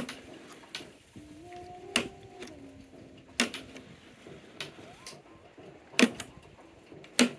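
Electric push-button tuning of an RCA 813K console radio being worked: about half a dozen sharp mechanical clicks at irregular intervals, with a faint low tone that steps up in pitch and holds for a couple of seconds early in the sequence.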